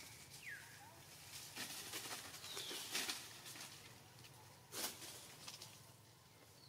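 Faint forest-floor sounds of long-tailed macaques moving over dry leaves and twigs: a stretch of rustling about two to three seconds in and one sharp crackle near five seconds. A few short falling chirps sound in between.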